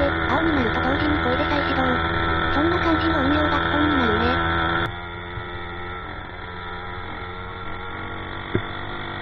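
The 50cc piston-valve two-stroke engine of a motorized bicycle, running steadily as a hum while the bike is ridden. A wavering tone rises and falls over it during the first five seconds. About five seconds in the sound drops abruptly to a quieter, steadier hum, and a single click comes near the end.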